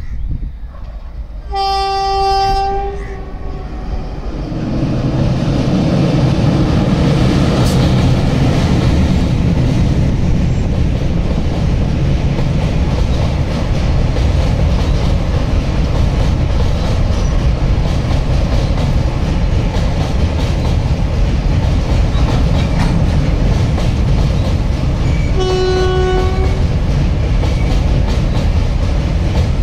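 Freight train's locomotive horn gives a blast about two seconds in. Then the rumble of the train builds and holds steady as covered goods wagons roll across a steel girder bridge. A second horn blast comes a few seconds before the end.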